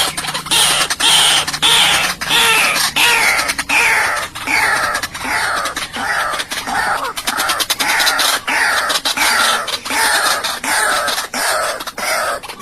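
White-breasted waterhen calling over and over: harsh croaking notes that each slide down in pitch, repeated about twice a second without a break.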